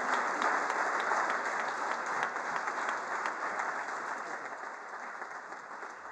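Audience applauding, many hands clapping at once, loudest at first and slowly fading.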